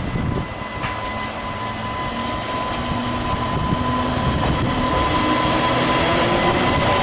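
Class 230 D-Train diesel-electric multiple unit approaching along the platform, its engine and wheels growing steadily louder, with a steady thin whine above the rumble.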